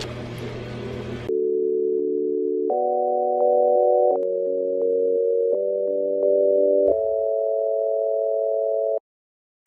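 After a second of faint room noise, a run of pure electronic sine-wave tones plays as held chords of three or four notes, shifting to a new chord about every second and a half with small clicks at the changes. It cuts off suddenly about nine seconds in.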